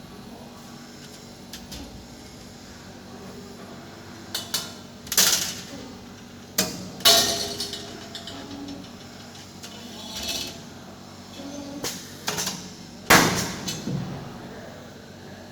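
Irregular knocks and clatters of hard objects, some ringing briefly, over a steady low hum; the loudest strikes come about 5, 7 and 13 seconds in.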